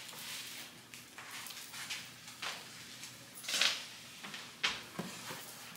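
Soft rustling and scuffing as a rug gripper strip is handled and pressed down on the floor under a kitchen mat, in a few short bursts, the loudest about three and a half seconds in.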